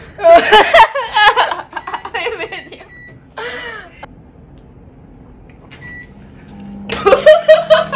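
Young women's voices and laughter at the start and again near the end, with a quieter stretch in between while they drink from plastic water bottles. A few short high beeps sound during the quiet part.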